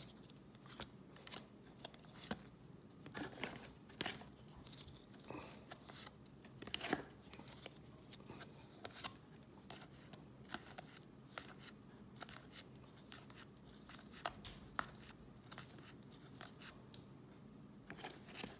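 Baseball trading cards being flipped through one by one in the hand: faint, irregular card snaps and slides, a click every second or so.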